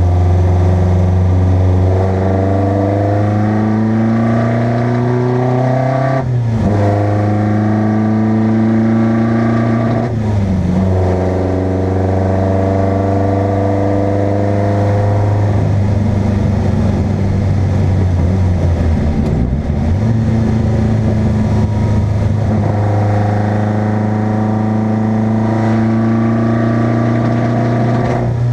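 Competition car engine accelerating hard through the gears, its pitch climbing steadily, then dropping sharply at each upshift, about six and ten seconds in and again at the end. A steadier stretch with a short lift in the middle.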